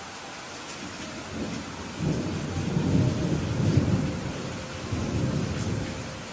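Steady rain falling, with a low rolling rumble of thunder that builds about a second in, swells through the middle and fades near the end.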